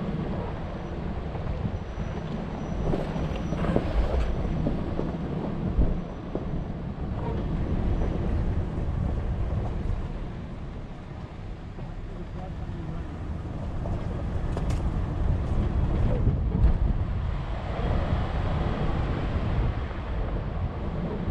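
Four-wheel-drive vehicle driving along a dirt trail, its engine and running noise steady throughout, with wind noise on the microphone.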